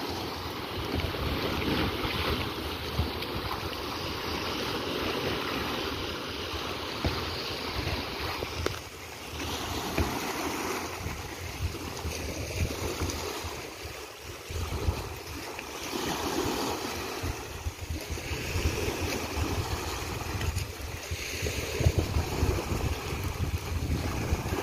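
Small sea waves washing and breaking at the shore's edge, with wind buffeting the microphone in a flickering low rumble.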